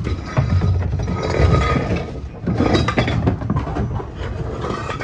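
Metal clanking and scraping as a bare car body with no wheels or suspension is forced up onto a trailer, with a low rumble throughout.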